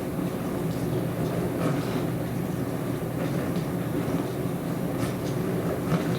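Dishwasher running: a steady low churning hum with a few faint clicks on top.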